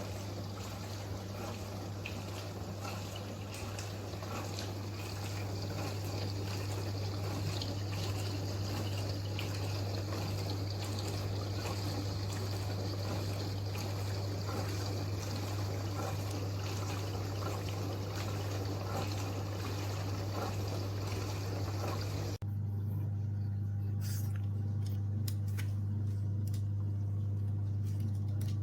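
Cookology CMDW2 countertop dishwasher running: water spraying and splashing inside over a steady motor hum. About 22 seconds in the water noise cuts off suddenly while the hum carries on.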